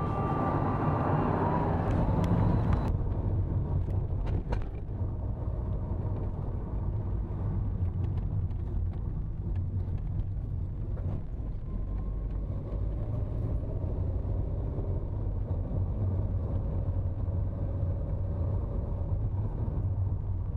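Car engine and tyre road noise heard from inside the cabin while driving, a steady low drone. About three seconds in the hiss drops away abruptly, leaving a duller, quieter drone.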